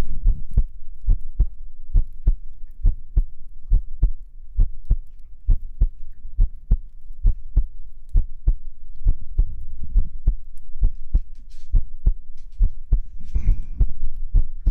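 A person's heartbeat, heard as steady, regular lub-dub pairs of low thuds. A brief soft hiss comes in near the end.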